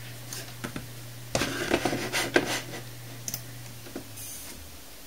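Dell Optiplex 390 desktop running, with a steady low hum from its rear exhaust fan after the fan's sleeve bearing has been lubricated. A few faint clicks and a short scratchy rustle come about a second and a half in, and the hum drops away about four seconds in.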